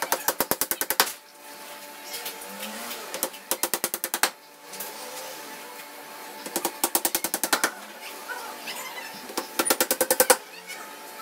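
Hammer rapidly tapping nails into the edge of a wooden box's board top panel, in four quick runs of about ten blows a second, with short pauses between.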